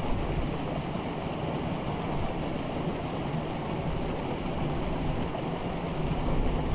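Steady rushing water of a forest river, a constant full-bodied roar with no breaks.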